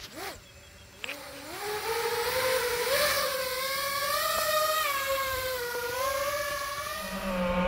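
Brushless motors and Gemfan propellers of a 5-inch 6S FPV quadcopter spinning up about a second in, then running as a steady whine whose pitch wavers up and down with the throttle.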